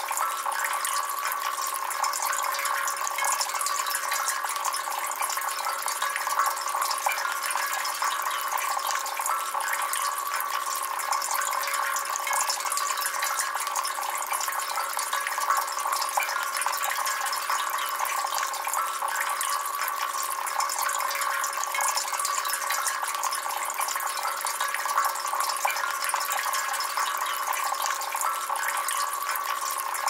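Water trickling and splashing steadily down the metal leaf tiers of a Sunnydaze copper flower-petal outdoor fountain into its pebble-filled basin.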